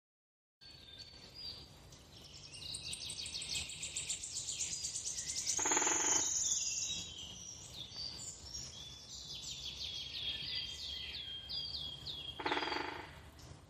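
Birdsong: rapid runs of high chirps and trills that build up over the first few seconds and continue throughout, with a lower, buzzier call about six seconds in and again near the end.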